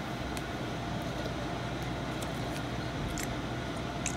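Faint crinkling and ticking of a small snack packet's wrapper being opened by hand, a few separate crackles, over a steady room hum.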